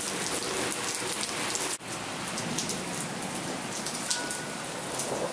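Steady rain falling on a wet concrete patio, with a sudden brief drop about two seconds in.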